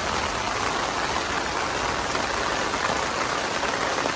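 Heavy rain falling with floodwater running past, a steady even hiss.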